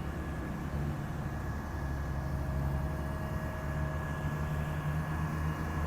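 Large engine of road-construction machinery running steadily: a low rumble with a faint steady whine above it.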